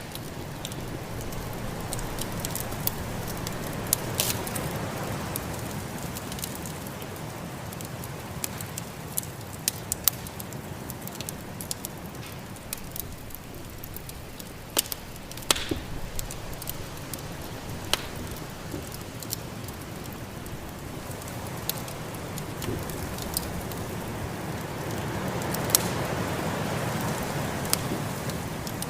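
Wood fire crackling in a fireplace, with sharp pops scattered throughout, over a steady rush of snowstorm wind that swells twice, once early and again near the end.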